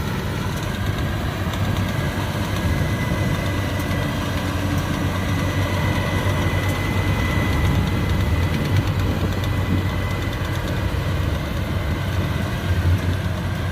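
Rice combine harvester's diesel engine running steadily with a low drone, and a faint high whine in the middle.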